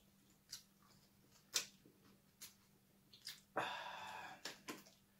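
Quiet eating sounds: a few sharp clicks of a spoon against a small dessert cup and of food being handled, with a louder eating noise lasting under a second about three and a half seconds in.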